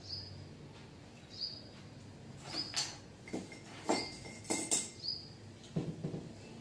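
A small bird chirping a short note about every second and a quarter, over knocks and clinks of a marker and duster being handled at a whiteboard ledge. Near the end, a cloth duster wiping the whiteboard.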